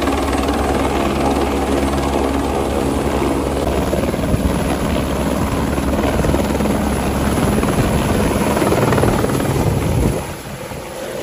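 Crop-spraying helicopter running loud and close, its engine and rotor beat steady at first. A few seconds in the rotor sound changes and grows as it powers up to lift off, then drops away sharply near the end as it leaves.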